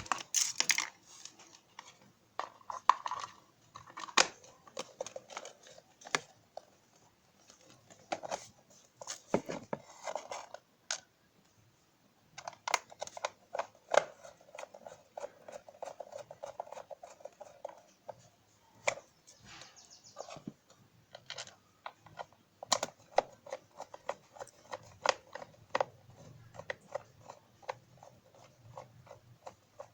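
Irregular small clicks, taps and scrapes of parts and tools being handled while an egg beater is taken apart and repaired, with stretches of steady scraping in the middle.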